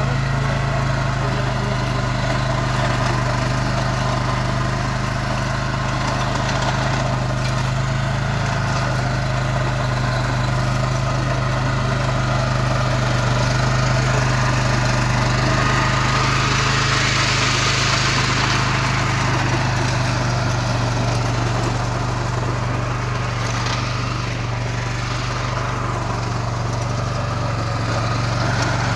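Swaraj Code compact tractor's diesel engine running steadily under load while its rear rotary tiller churns through soil. The sound grows louder and noisier for a few seconds around the middle.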